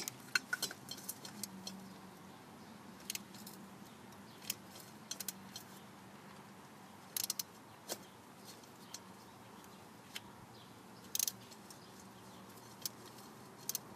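Irregular light clicks and metallic clinks from a ratchet and oil filter wrench being worked to snug a new spin-on oil filter, with a cluster of them near the start.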